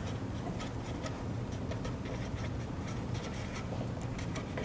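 Pen scratching on paper in many short, faint strokes as words are written by hand, over a steady low hum.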